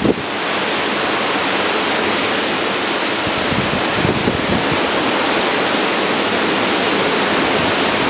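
Steady, even rush of a severe thunderstorm squall's high wind and heavy wind-driven rain lashing the trees.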